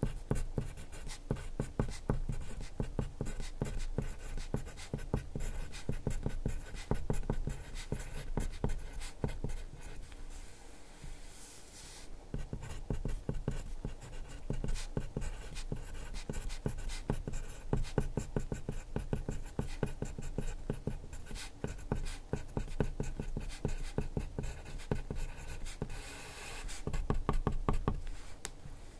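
Wooden pencil writing on paper, close-miked: quick, dense scratching strokes of handwriting. A longer continuous scrape comes near the end, as a wavy line is drawn.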